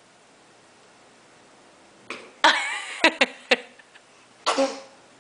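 A baby's short cough-like, throaty noises mixed with brief squeaks, in a quick cluster about two seconds in and one more burst near the end.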